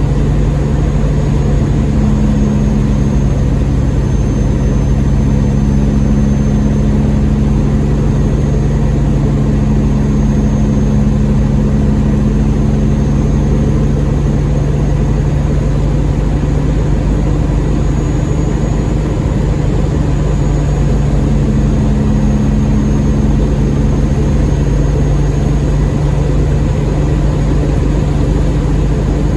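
Semi-truck diesel engine running steadily, heard from inside the cab as an even low drone.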